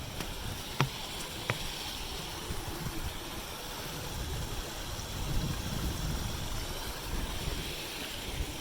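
Steady outdoor rushing noise with wind buffeting the phone's microphone in a fluctuating low rumble, and two small clicks about a second in.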